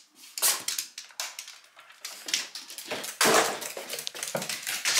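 Irregular clicking and tapping of footsteps on a wooden floor and stairs, with rustling between the steps, growing louder and denser about three seconds in.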